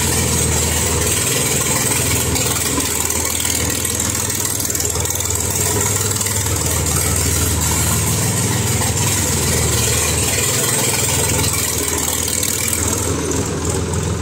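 Massey Ferguson 7250 DI tractor's three-cylinder diesel engine running at a steady speed with its silencer removed, so the exhaust is loud and open as the tractor drives along slowly.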